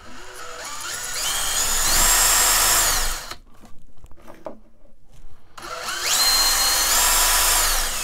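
Electric drill run up to speed twice, spinning a microwave's geared AC turntable motor as a generator to light an LED bulb. Each time it gives a rising whine that levels off. The first run stops about three seconds in and the second starts shortly after the middle.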